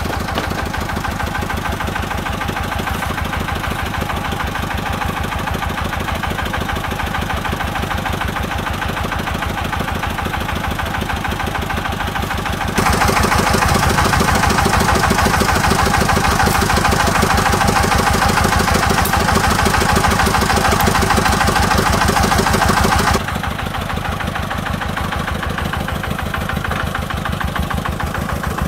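Single-cylinder diesel engine of a công nông three-wheeled farm dump truck idling steadily with even firing pulses. For about ten seconds from near the middle it is louder and sharper, then drops back.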